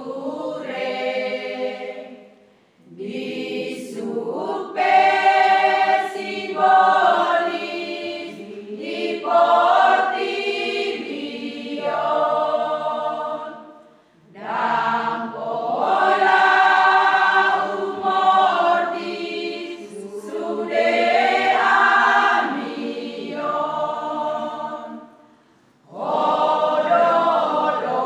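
Women's church choir singing a hymn, with many voices together. The singing breaks off briefly between phrases about 3, 14 and 25 seconds in.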